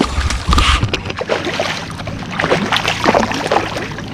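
Rainbow trout thrashing at the surface as it is scooped into a landing net: irregular splashes and water sloshing.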